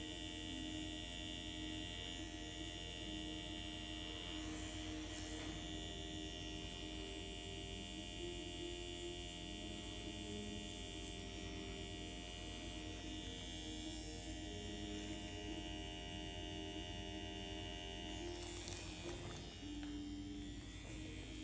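Steady electric hum with several high whining tones held throughout, under soft background music with slow held notes.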